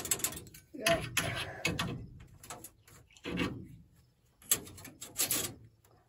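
Irregular metallic clicks and knocks from a Massey Ferguson 860 combine's sieve being adjusted by hand: the adjuster is slid and the louvres are set until a drill bit fits snug in the opening.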